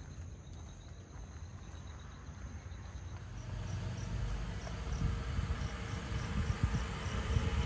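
Insects chirping, first as steady high tones, then as a regular pulsed chirp from about halfway. Through the second half a low rumble and hiss grow steadily louder.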